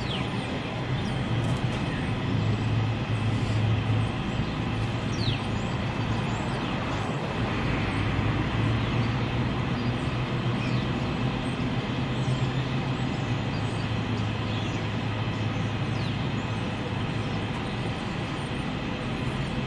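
Kinkisharyo P3010 light-rail car standing at the platform with its doors open, its onboard equipment running with a steady low hum. A few short faint high chirps come through over it.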